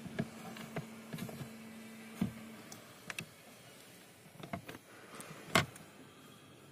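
Scattered plastic clicks and knocks as hands grip and work the clips of a Mitsubishi Xpander's front AC blower motor housing, with the sharpest click about five and a half seconds in. A faint steady hum runs under the first two and a half seconds.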